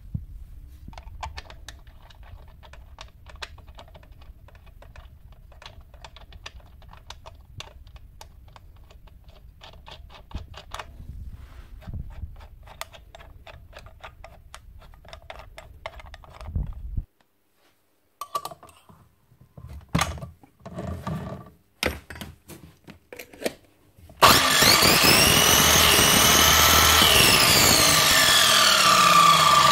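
Small clicks and knocks from hands working at an Einhell mitre saw's blade and arbor nut. About 24 seconds in, the saw's electric motor starts suddenly and runs loudly with the blade spinning, its whine rising and then falling in pitch.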